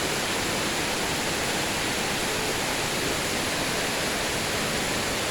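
Heavy rain falling in a steady, even downpour, with no thunderclap in this stretch.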